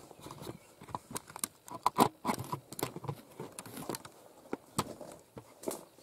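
Irregular clicks, knocks and crunches of movement and handling close to the microphone, such as footsteps on a debris-strewn floor and twigs being brushed, with the loudest cluster about two seconds in.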